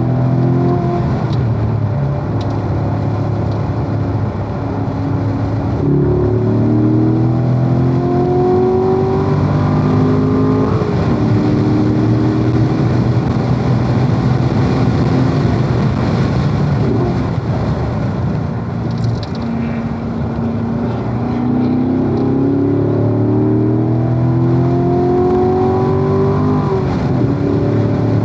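Corvette V8 engine under hard acceleration on a race track, its pitch climbing through the gears with sudden drops at each upshift. About two-thirds through it falls back to a lower, quieter note as the car lifts for a corner, then pulls up through the gears again.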